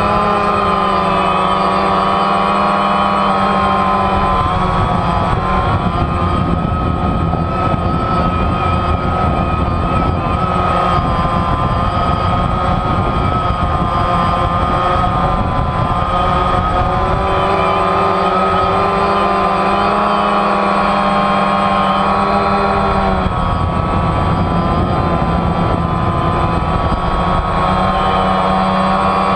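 DJI Phantom quadcopter's four propellers and electric motors whining steadily in flight, close up from a camera mounted on the drone. The pitch wavers and shifts as the throttle changes while it manoeuvres and climbs.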